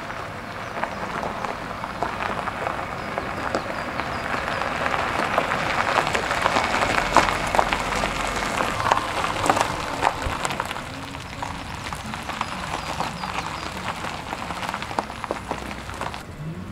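A minivan's tyres crunch slowly over a gravel track with a faint engine hum. The crackle grows louder as the van comes close, then eases as it passes.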